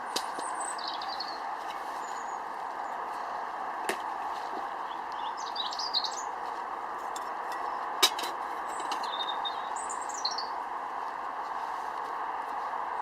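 Small birds chirping in short, high calls several times over a steady background hiss, with a few sharp clicks in the middle.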